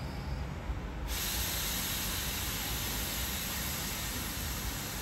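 Compressed air hissing out of a standing Red Rattler vintage electric train's air system. The loud, even hiss starts suddenly about a second in and runs on for about four seconds, over a low rumble.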